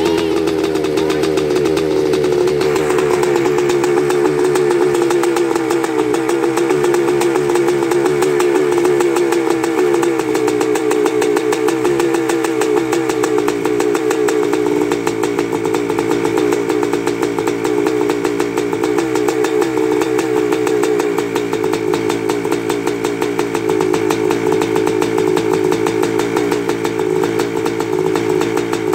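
A 2002 Kawasaki KX500's single-cylinder two-stroke engine idles steadily just after a cold start, on a freshly rebuilt top end. The idle eases a little lower over the first fifteen seconds or so and then holds.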